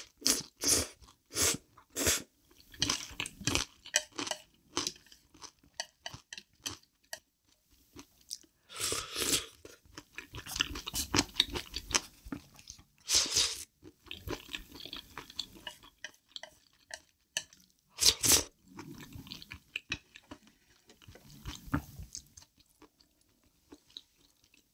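Close-miked mouth sounds of eating thick black bean noodle sauce from a wooden spoon: chewing and wet mouth clicks, with longer slurps about 9, 13 and 18 seconds in.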